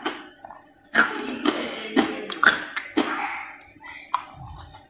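Crushed ice crunched between the teeth in a series of sharp crunches, about two a second, with one more crisp crunch near the end.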